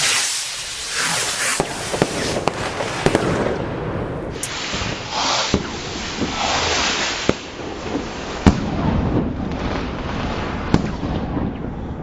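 Consumer firework rockets launching and bursting: rushing hiss from the rockets in flight, with several sharp bangs scattered through and crackling in between.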